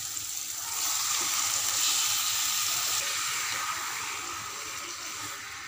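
Raw mutton pieces tipped into hot oil and tomato-onion masala in a kadai, sizzling; the hiss swells about a second in as the meat hits the oil, then slowly dies down.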